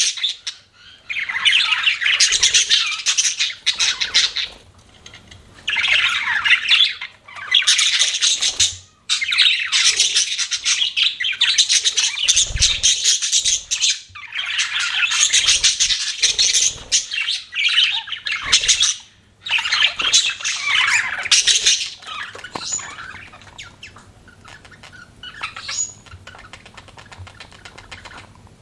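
Pet budgerigars chattering and chirping in dense bursts a second or more long, with short pauses between, growing sparser near the end.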